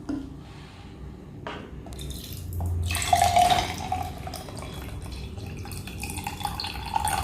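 Vinegar being poured into a glass cup over a raw egg. The splashing pour starts about two to three seconds in and runs on steadily.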